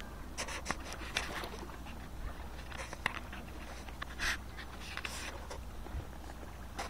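Wind rumbling on the microphone, with short irregular splashy hisses of small waves lapping at the lakeshore.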